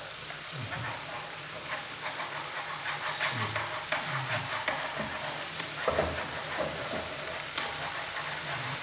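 Macaroni frying with fish sauce in a frying pan, sizzling steadily while a wooden utensil stirs it, with scattered small scrapes and taps against the pan.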